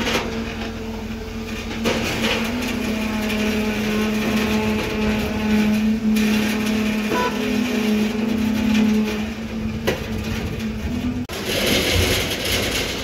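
Concrete-pouring machinery running at a construction site: a steady mechanical hum with a slight wobble in pitch, which breaks off about 11 seconds in and gives way to a broader rushing noise.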